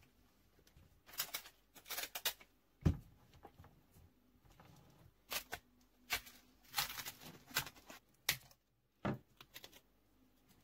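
Hands peeling and ripping the plastic wrap and tape off lithium polymer (LiPo) battery packs, in irregular crinkling, tearing bursts, with a couple of knocks on the bench, the sharpest about three seconds in.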